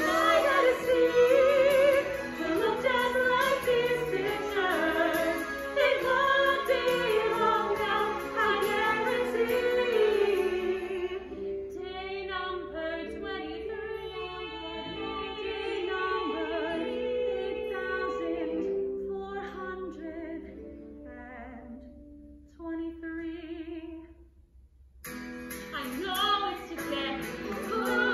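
Women singing a musical-theatre number with accompaniment. About halfway through, the music thins to softer held, wavering notes and fades almost to nothing after about 24 seconds. Then a new, louder song starts near the end.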